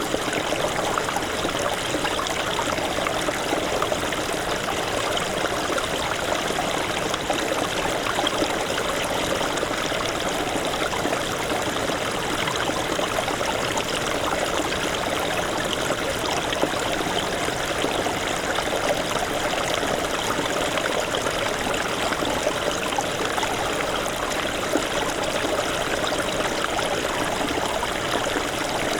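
Small stream of snowmelt water running over stones, a steady babbling and trickling that holds even throughout.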